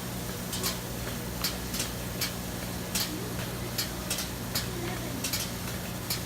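Goat milking machine running: a steady low hum with short hissing clicks from the pulsators, about one to three a second, at a slightly uneven beat.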